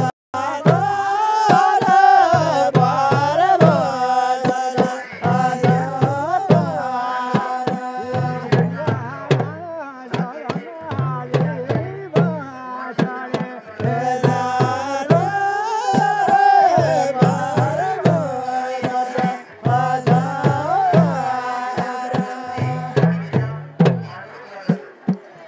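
Hudkeuli folk song from far-western Nepal: hudka hourglass drums beaten in a steady rhythm under a male voice singing melodic phrases with short pauses between them.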